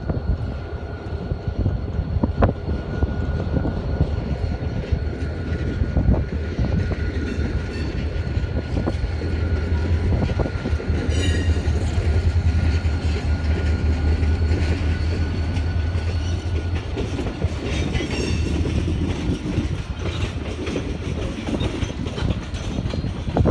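Freight train with a diesel locomotive going by. The engine's low rumble is loudest about halfway through as the locomotive passes, then the rolling railroad cars go by with the clickety-clack of wheels over rail joints.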